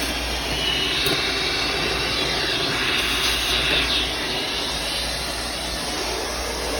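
Panasonic MC-V7325 upright bagged vacuum cleaner running steadily through its hose attachment: a loud rush of air with a high whine.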